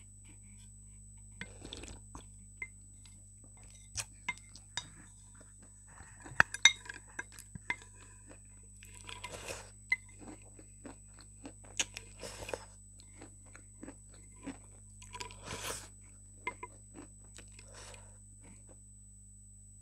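Close-miked eating from a bowl: crunching and chewing, a wooden spoon clicking and scraping against the bowl, and sipping off the spoon. The sounds come in irregular short bursts and clicks.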